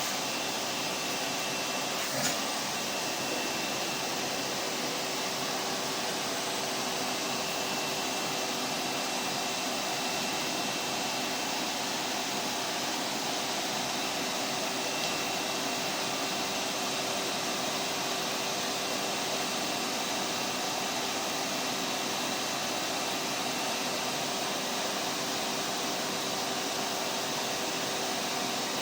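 Vacuum cleaner motor running continuously: a steady rushing whir with a constant hum and a faint high whine, unchanging throughout. There is one small click about two seconds in.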